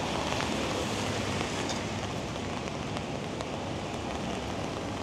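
Steady rain falling: an even hiss with faint ticks of single drops.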